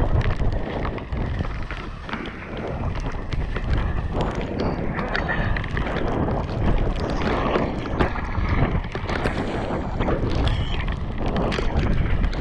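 Mountain bike ridden fast downhill on a wet dirt trail: wind buffeting the helmet camera's microphone over tyre noise, with frequent knocks and rattles from the bike over bumps.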